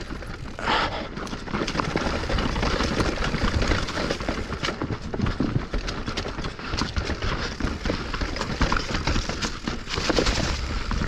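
Mountain bike rolling through a rock garden: tyres knocking over rocks while the frame, chain and suspension rattle in a steady, irregular clatter.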